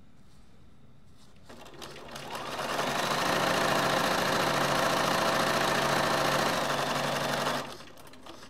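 Bernina Aurora sewing machine stitching a zipper seam with its zipper foot. It starts about a second and a half in, speeds up to a steady run, and stops near the end.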